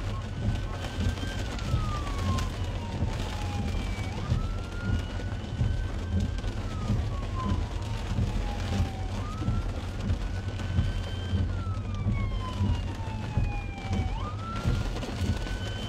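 Emergency vehicle siren on a slow wail, each cycle rising quickly, holding high, then sliding down over a few seconds, repeating about every five seconds. It is heard from inside a car, with low engine and road rumble beneath.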